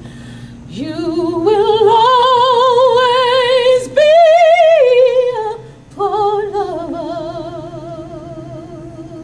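A woman singing solo with strong vibrato on long held notes. The line climbs step by step from about a second in to a loud, high peak in the middle, breaks off briefly near six seconds, then comes back on a softer held note that fades.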